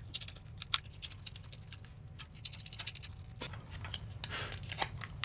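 Small screwdriver driving tiny screws into the plastic case of a Zoom Q2n video recorder: quick clicking and scraping of metal on plastic in several short flurries, with a softer scratching of plastic parts being handled near the end.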